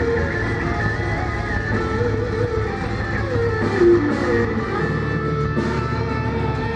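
Deathcore band playing: sustained, amplified electric guitar notes that slide in pitch over a steady low end, with a few cymbal strikes in the second half.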